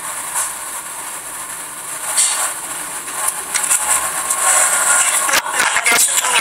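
Steady hiss with scattered rustling and bumps, heavier near the end, as of a phone's microphone being handled.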